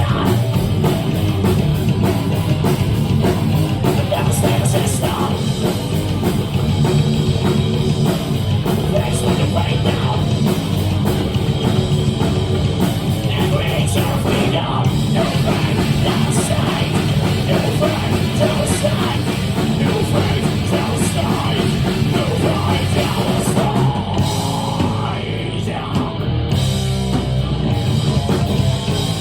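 Thrash-metal band playing live at full volume: distorted electric guitars, bass and a pounding drum kit, heard through a phone's microphone in a club.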